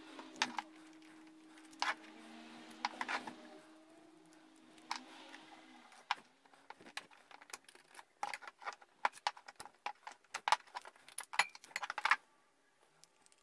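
Metal parts clinking and knocking on a workbench as a countershaft assembly of aluminium-angle sidebars, steel shafts, nuts and brass bearing housings is taken apart by hand. A few scattered knocks at first, then a busy run of clicks and clinks from about eight to twelve seconds in.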